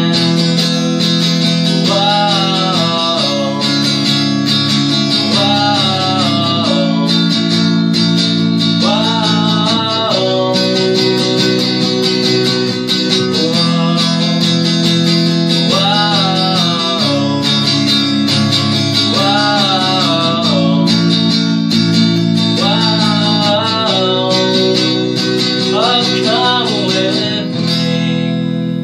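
A man singing a slow song while accompanying himself on an electric guitar, playing held chords that change every couple of seconds under the wavering vocal line.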